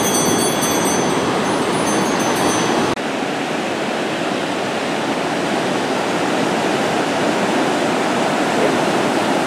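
Ocean surf breaking and washing in, a steady rush of water noise. The sound shifts abruptly about three seconds in, where the shot changes to waves running over a rocky reef shelf.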